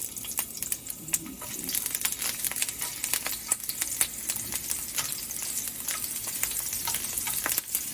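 Ginger and garlic sizzling in hot oil in a pan, with the steady hiss of frying and frequent clicks and scrapes of a spatula stirring them.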